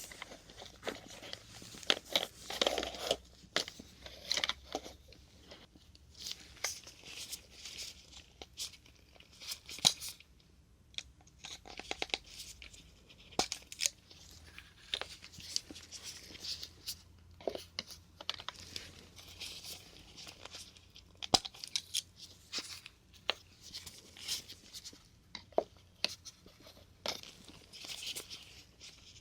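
Plastic needle caps being pulled off disposable syringes one after another: irregular sharp pops and clicks, with stretches of crinkly plastic rustling between them.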